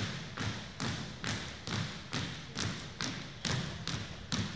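Marching squad stamping its steps in unison on a wooden gym floor, a steady beat of about two and a half footfalls a second.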